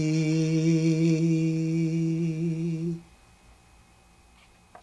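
A man's voice holding one long closing note of an unaccompanied song, steady with a slight waver, that stops about three seconds in. Then quiet room tone and a faint click just before the end.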